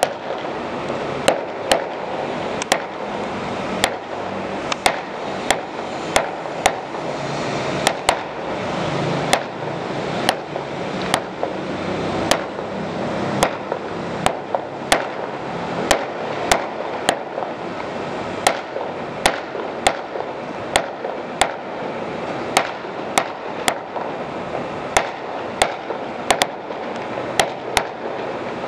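Fireworks going off: sharp bangs, about one or two a second at uneven intervals, over a continuous noisy din.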